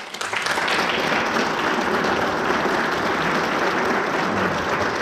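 Audience applauding in a large room, starting just as a piece of music ends and going on steadily.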